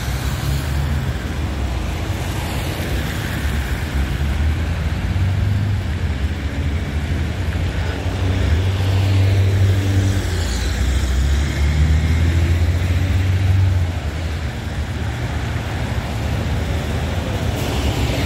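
Road traffic: cars passing on a multi-lane road in a steady rumble that swells for several seconds in the middle as heavier vehicles go by.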